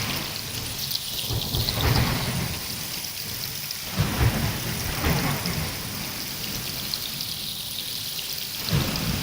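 Steady rain with rolls of thunder: rumbles about a second in, a sharper one around four seconds, and another near the end.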